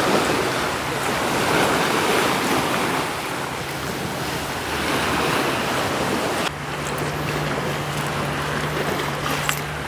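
Sea waves breaking and washing on the shore at high tide, swelling and ebbing, with wind buffeting the microphone. A steady low hum runs underneath and grows stronger about six and a half seconds in.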